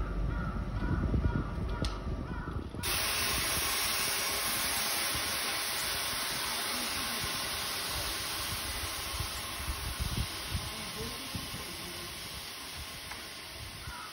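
Construction noise: a loud, steady hiss that starts suddenly about three seconds in and slowly fades, over low rumbling at the start.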